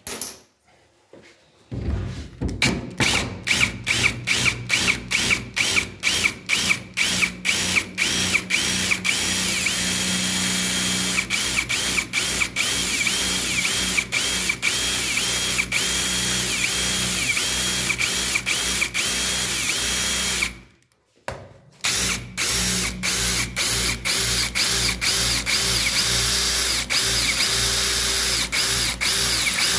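Power drill boring into a brass euro-profile lock cylinder along its pin line. It runs in rapid short pulses at first, then more steadily, stopping briefly about two-thirds through. The bit is cutting through the last of the cylinder's five pins to reach its middle, so the locked cylinder can be turned without the key.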